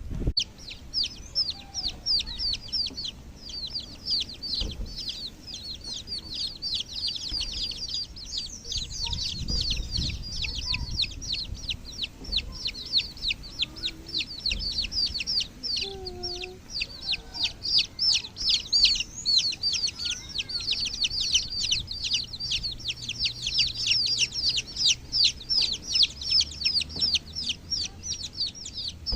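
A group of baby chicks peeping continuously: many short, high chirps that each slide downward in pitch, overlapping several a second.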